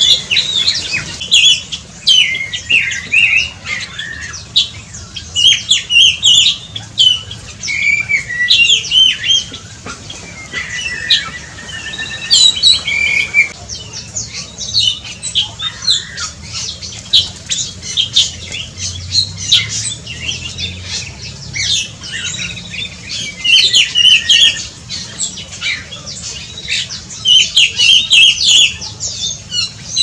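Black-and-crimson oriole (kepodang dada merah) calling: a busy, almost unbroken run of short harsh squawks and chirps, with a few short whistled notes mixed in.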